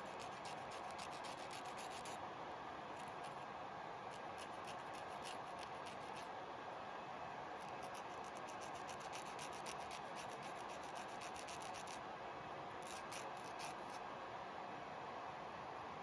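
A gel nail being filed: quick rubbing, scratching strokes heard as runs of fine ticks in four bursts with short pauses between, over a steady faint hiss.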